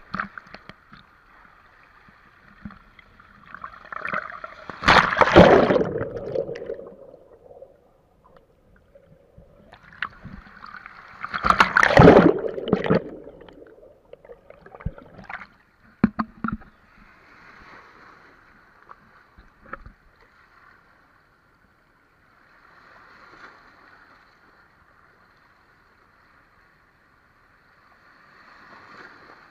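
Seawater sloshing and washing over an action camera at the waterline, with two loud surges of rushing water about 5 and 12 seconds in and fainter water sounds between.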